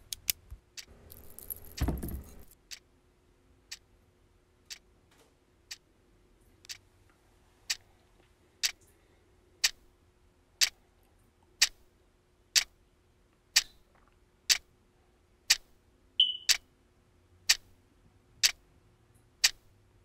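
Clock ticking about once a second, growing steadily louder. A short rustle and thump come about two seconds in, and a brief high chirp near the end.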